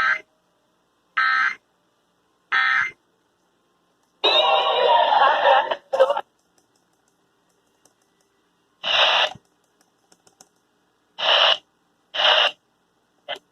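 Emergency Alert System data tones: three short digital chirps, about a second and a quarter apart, matching the end-of-message bursts that close the Required Monthly Test. About four seconds in comes a two-second burst of denser radio sound, and from about nine seconds on there are several more short bursts from the receiver.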